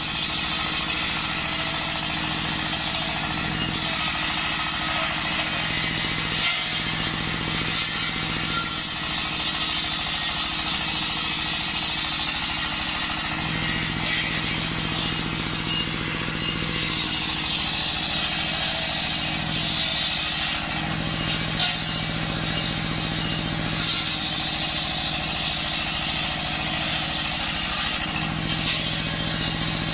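Belt-driven circular sawmill blade ripping a waru log lengthwise, over the steady running of the stationary diesel engine that powers it. The bright cutting noise and a low hum swell and ease every few seconds as the log is pushed through in repeated passes.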